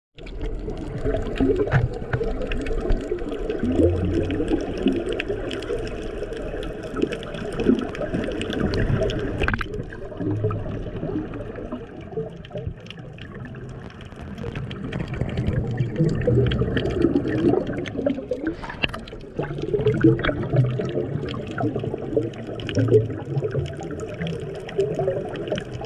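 Underwater water noise heard through a submerged camera: a muffled, uneven rushing and gurgling of water and bubbles, with many scattered sharp clicks.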